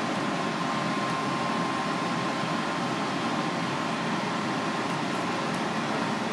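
Steady, even background noise with a faint high hum running through it; no distinct knife or cutting sounds stand out.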